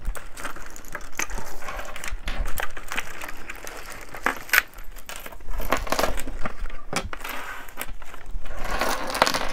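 Small metal costume-jewelry earrings clinking and clicking against each other as they are handled and gathered up, with a denser rustle near the end.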